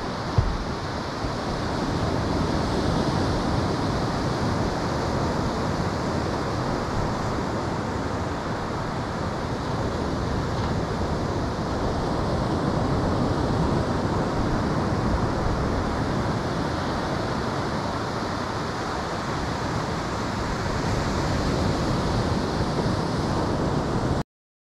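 Ocean surf breaking on the beach, a steady rush that swells and eases every several seconds, with wind buffeting the microphone. A single brief knock about half a second in.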